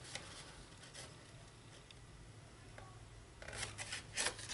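Faint rustling and light clicks of designer paper being handled as a glued paper box is folded together. A couple of soft clicks come early, then the rustling gets busier about three and a half seconds in.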